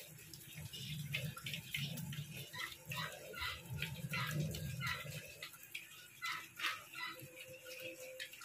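Duroc × Large White pigs eating wet feed: quick, irregular wet smacking and slurping of snouts in the mash, with a low rumbling underneath that stops about five seconds in.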